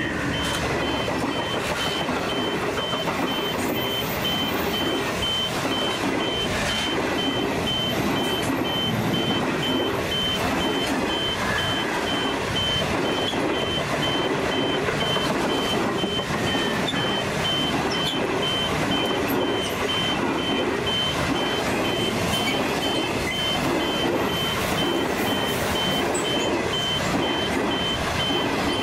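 Long train of stainless-steel passenger carriages rolling past, a steady wheel-on-rail rumble with a rhythmic clatter as the bogies pass. A high beep repeats several times a second throughout.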